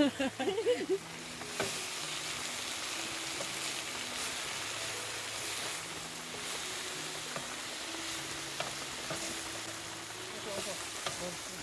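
Food sizzling as it fries in a pan: a steady, even hiss.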